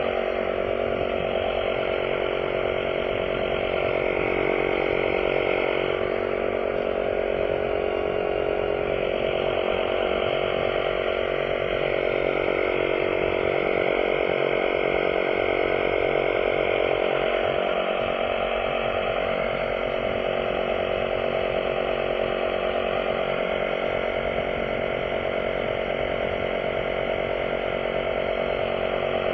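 A small motor running steadily at a nearly constant pitch, without a break.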